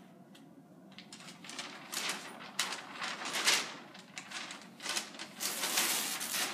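A large sheet of flip-chart paper rustling and crinkling as it is lifted and torn off the easel pad. The rustles start about a second in, come thicker and louder, and end in a longer continuous rustle near the end.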